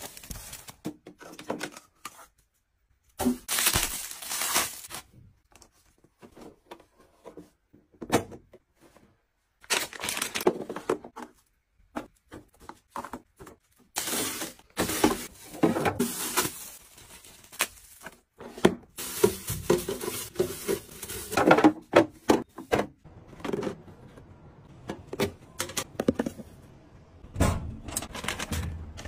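Irregular rustling, tapping and light knocks of objects and packaging being handled, in short bursts with quiet gaps between.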